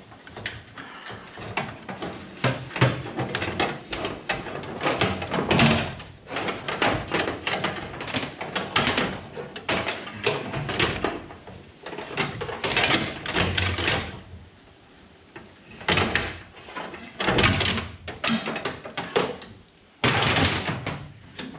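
Irregular knocks, rattles and scraping as cables and corrugated plastic conduit are handled and dragged across an aluminium boat hull, with a brief quieter spell about two-thirds of the way through.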